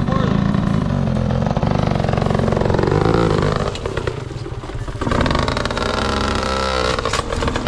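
Dirt bike engine running under throttle on the trail. The pitch rises and falls with the revs, and it drops off and picks up again about four seconds in.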